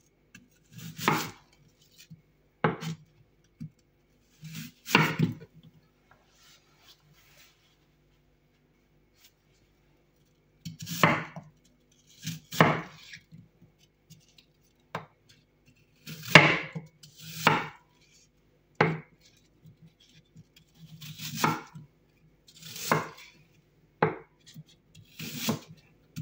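Chef's knife cutting peeled apple into chunks on a wooden cutting board: about a dozen separate cuts, each a short slice ending in a knock of the blade on the board, with a pause of a few seconds in the middle.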